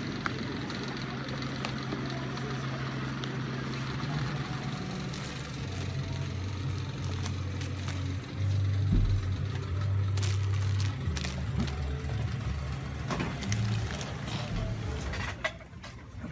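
Background film score: low sustained bass notes that shift pitch every second or two and swell about halfway through, with a few soft clicks near the end.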